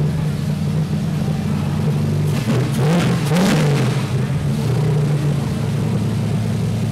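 Modified engine in a show pickup's open engine bay, idling steadily and blipped twice near the middle, its pitch rising and falling back each time.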